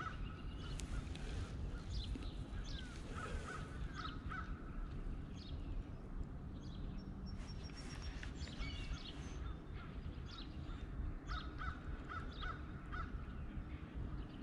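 Birds calling: runs of short, repeated calls come a few times, with scattered higher chirps from other birds over a steady low background rumble.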